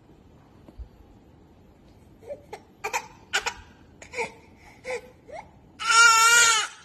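Baby crying: after about two seconds, short catching sobs and whimpers, then one loud, drawn-out wail near the end.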